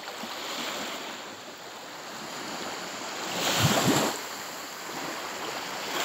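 Small Baltic Sea waves lapping and washing up a sandy shore, a steady rush of water with a louder surge about three and a half seconds in.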